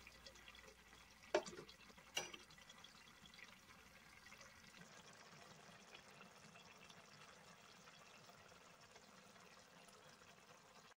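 Faint bubbling of spinach curry simmering in an aluminium pot, with two light knocks of a steel ladle against the pot about a second and two seconds in.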